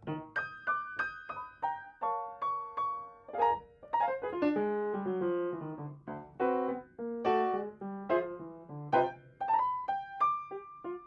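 Solo piano music: a brisk tune of short struck notes and chords, with a run of notes stepping downward about halfway through.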